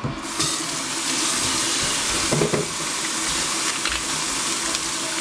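Kitchen faucet running steadily into a stainless steel sink, the water splashing over bok choy being rinsed in a metal bowl; it comes on right at the start.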